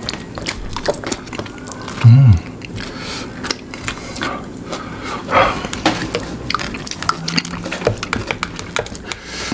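Close-miked eating sounds from people eating fried chicken: chewing and lip-smacking with many small wet mouth clicks. A brief low hum, falling in pitch about two seconds in, is the loudest sound.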